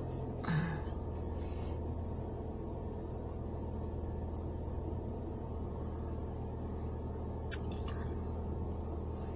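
Steady low hum inside a car while lipstick is being put on, with a single sharp click about three-quarters of the way through as the lipstick tube is capped.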